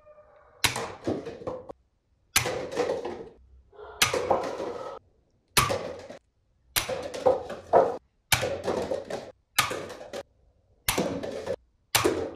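Toy foam-dart pistol firing about nine times, a shot every second and a half or so, each a sharp snap followed by about a second of clatter as paper cups are knocked over and tumble, echoing in a small room.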